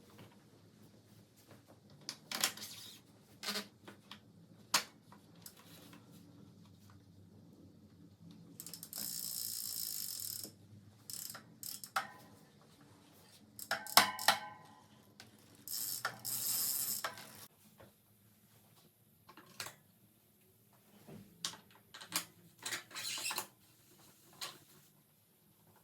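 Bicycle parts and hand tools being handled during assembly: scattered sharp clicks, taps and short rattles, with two longer bursts of hiss partway through.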